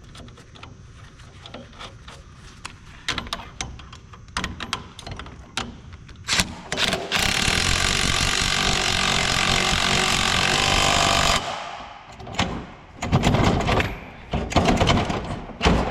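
Impact wrench driving a nut on in one steady run of about four seconds, starting about seven seconds in. Scattered clicks and knocks of tools and parts being handled come before it, and louder knocks and clatter after it.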